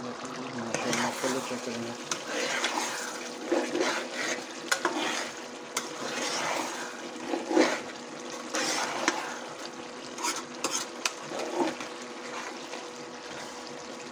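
Beef mince simmering in a large aluminium pot, bubbling, while a long metal spoon stirs and scrapes through it with irregular clinks and knocks against the pot. A faint steady hum runs underneath.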